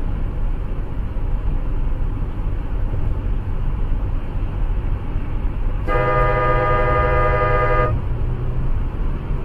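Steady low road and tyre rumble of a car driving at highway speed, heard from inside the car, with a car horn held for about two seconds some six seconds in.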